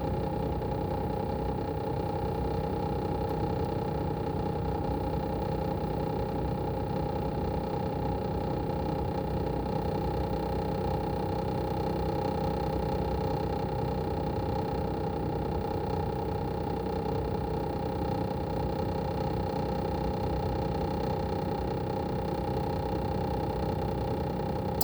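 Daikin ARN22HS inverter air conditioner outdoor unit running steadily: the swing compressor's even hum with a steady whine on top, holding one pitch throughout.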